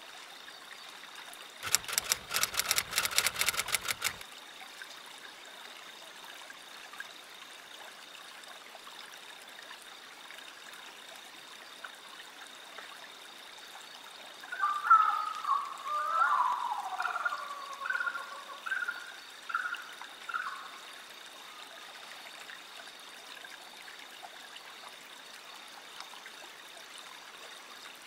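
Steady trickle of water in a pond. For about two seconds near the start there is a rapid clattering rattle. Midway comes a string of short, wavering whirring tones from a remote-controlled tracked robot's motors.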